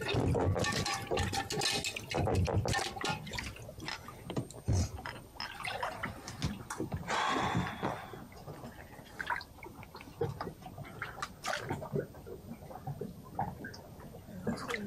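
Water splashing and dripping in irregular bursts, with a longer rush of pouring water about seven seconds in.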